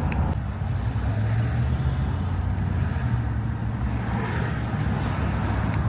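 Car running down the road: a steady low engine drone with road noise.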